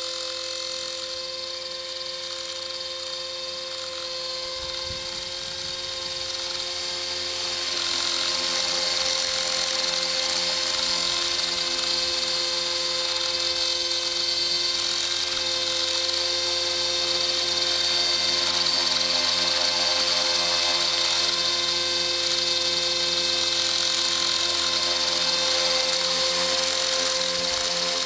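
Electric 450-size RC helicopter in flight: the 3500Kv motor and helical main gear whine at a steady pitch over the hum of the rotors, growing louder about a quarter of the way in.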